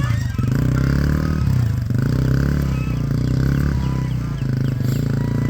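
Youth ATV engine running steadily at low speed.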